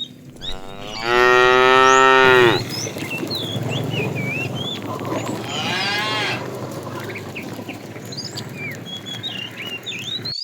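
Cow mooing: one loud, long moo about a second in, then a second, fainter and shorter moo around six seconds in.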